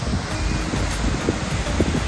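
Wind buffeting the microphone over a steady rush of water from a waterfall pouring into the lake.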